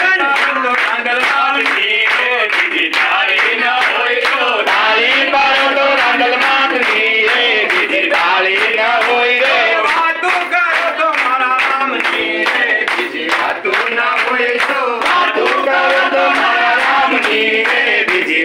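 A group of men and women singing together in unison, with steady hand-clapping in time to the song.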